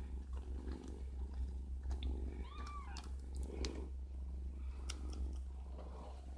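Domestic cat purring steadily, with scattered faint clicks. About two and a half seconds in comes one short high mew that rises and falls, like a kitten's.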